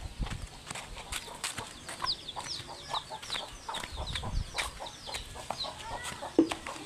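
Farmyard chickens clucking and making many short, high, falling chirps, amid a scatter of sharp clicks and knocks, with one loud knock near the end.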